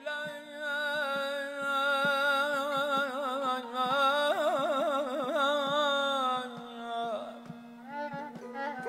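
Azerbaijani mugham singing: a high male voice holds long wordless notes and breaks into rapid trilling ornaments (tahrir) in the middle, over a steady low instrumental drone. It eases off and quietens near the end.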